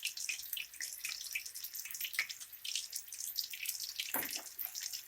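Marinated chicken pieces deep-frying in hot oil, a steady fizz of many small irregular crackles and pops, with one louder clack about four seconds in.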